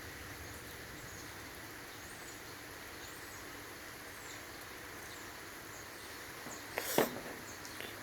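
Steady rain falling, with faint high chirps over it and one sharp knock about seven seconds in.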